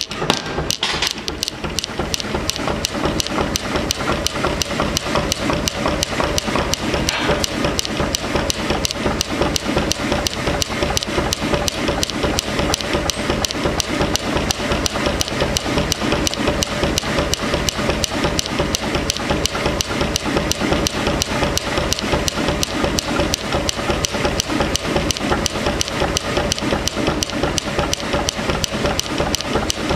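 Power hammer pounding a glowing steel block in fast, even blows, several a second, with the machine's steady running tone underneath.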